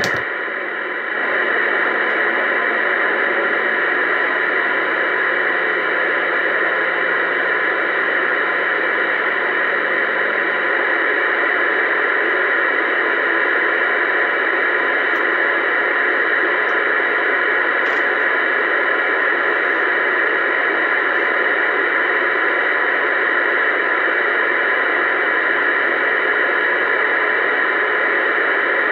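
Uniden Bearcat 980SSB CB radio giving a steady static hiss through its speaker, open on channel 19 AM with no station talking. A faint low hum sits under the hiss for the first ten seconds or so.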